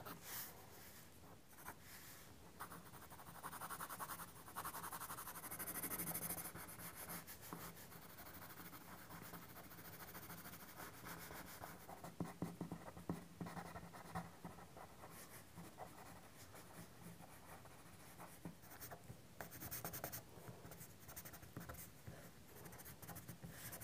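Soft 7B graphite pencil scratching faintly across sketching paper in shading and marking strokes. The strokes are louder for a few seconds starting about three seconds in.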